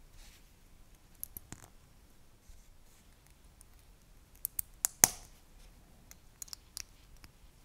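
LEGO plastic bricks and plates being handled and pressed together: scattered small plastic clicks, with a quick run of sharper clicks about two-thirds of the way through that ends in the loudest snap.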